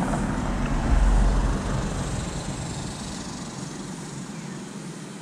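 Motor vehicle noise: a low rumble that peaks about a second in and then fades away, like a vehicle passing on the road.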